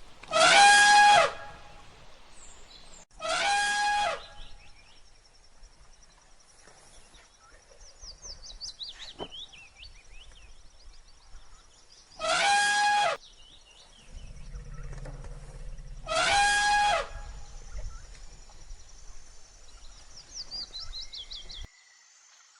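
Four loud pitched animal calls, each about a second long, with birds chirping faintly in the background.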